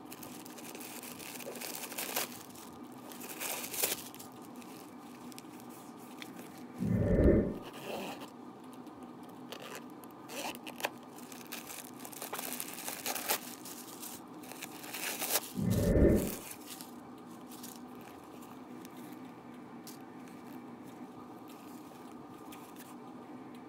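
Crinkling and rustling of white stuffing paper being pulled out of a leather crossbody bag, with handling noise from the bag. Two short, loud, dull thumps come about seven and sixteen seconds in.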